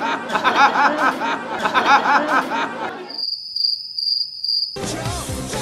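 Chuckling laughter in repeated short bursts, then cut off about three seconds in by a high, evenly pulsed cricket chirping, the comic 'crickets' sound effect for an awkward silence. Music begins near the end.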